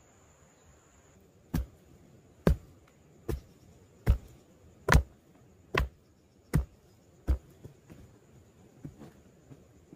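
Wooden pole being driven into the ground for a shelter frame: eight sharp blows, about one every 0.8 s, followed by a few faint knocks near the end.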